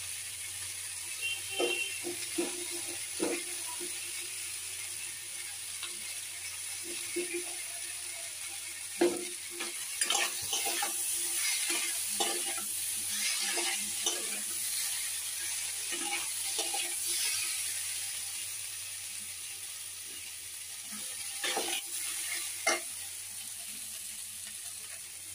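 Chopped vegetables sizzling in oil in a frying pan while being stirred with a spatula, which scrapes and knocks against the pan now and then. The sizzle grows louder about ten seconds in, as the vegetables are turned over.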